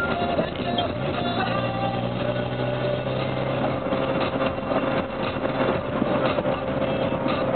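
Music playing on the car stereo, heard inside the cabin of a moving car over a steady engine and road rumble.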